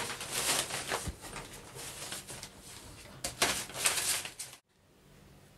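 Paper pattern pieces rustling as hands lift and move them on a table, in two spells of rustling, the second about three seconds in; the sound cuts off abruptly near the end.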